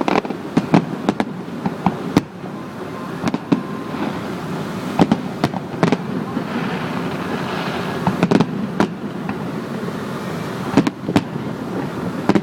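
Fireworks going off: a string of sharp bangs and crackles at irregular intervals, a few louder reports about two, five, eight and eleven seconds in, over a steady background noise.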